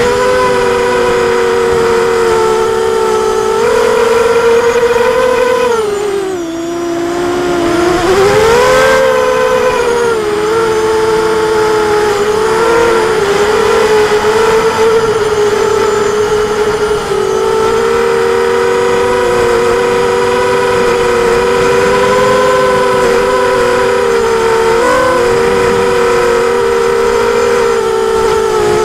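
Brushless motors and propellers of an ImmersionRC Vortex racing quadcopter whining in flight. The pitch drops about six seconds in and climbs back a couple of seconds later, with smaller wobbles as the throttle changes.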